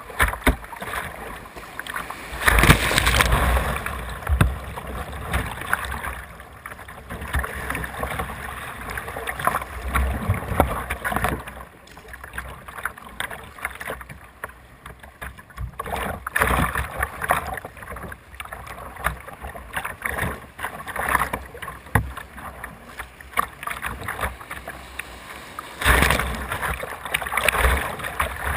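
Whitewater rushing and splashing over a kayak's bow, with irregular louder splashes, the strongest about three seconds in and again near the end.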